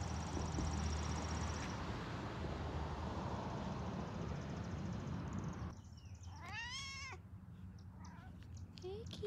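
Steady outdoor background noise, then a tabby cat meows once, a long meow that rises and falls in pitch, with a short meow near the end.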